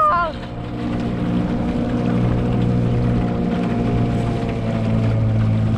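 Old 4 hp Johnson outboard motor running steadily, pushing an aluminium canoe along; its hum grows a little louder about two seconds in.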